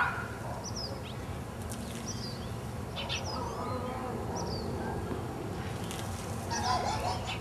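Outdoor ambience: a steady low hum with scattered faint, short, high chirps.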